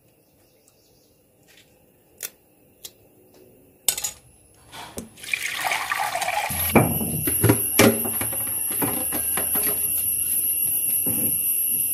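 Water running and splashing with clattering, under a steady high-pitched whine and low hum that start abruptly about six and a half seconds in.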